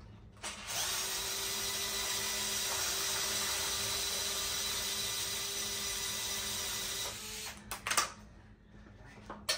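Cordless drill/driver spinning steadily with an even whine for about six seconds as it backs out a rear shock mounting bolt, followed by a few short metal clicks near the end.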